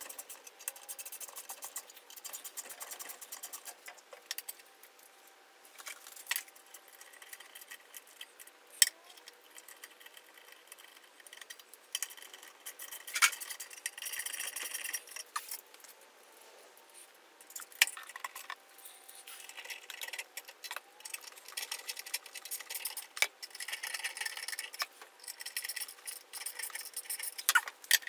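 Hand screwdriver turning screws that mount stepper motors onto a 6040 CNC router's aluminium frame: scratchy turning and light rattling, with sharp metal clicks every few seconds.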